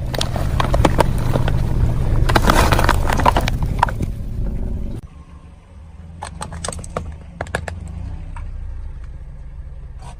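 Car tyres rolling over and crushing brittle objects, a dense run of crackling snaps over the low rumble of the car's engine. After a sudden break about halfway through, the engine rumbles on more quietly with a second, shorter spell of sharp cracks.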